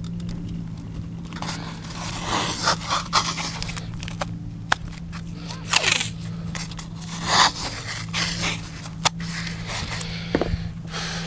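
T-shirt fabric rubbing and brushing against the camera's microphone: irregular scraping, rustling swishes and a few sharp clicks of handling noise, over a steady low hum.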